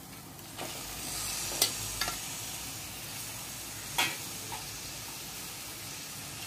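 Raw chicken pieces sizzling in hot oil and fried spice masala in an aluminium pot, a steady sizzle that swells about half a second in, with a few short knocks.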